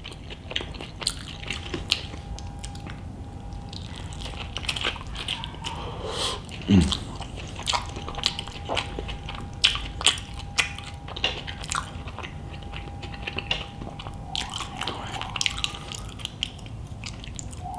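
A person biting and chewing food close to the microphone: many small wet clicks and smacks of the mouth. A faint steady high tone hums behind it.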